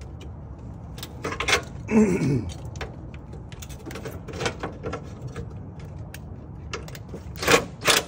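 Metal tools clicking and clanking on a battery hold-down bracket as a stuck nut is worked loose, with a short falling whir about two seconds in and a cluster of louder clicks near the end.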